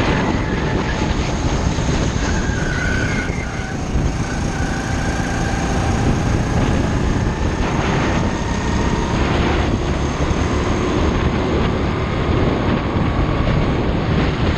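Go-kart engine running at speed, heard from on board, under a steady rush of noise. The engine note drifts a little in pitch, and the level dips briefly about four seconds in.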